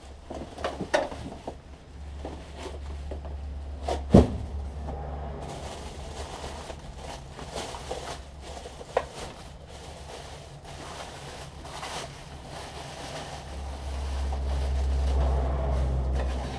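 Handling and unpacking a boxed belt and disc sander: scattered knocks and clicks of the machine and its packaging, with one sharp knock about four seconds in, over a steady low rumble that grows louder near the end.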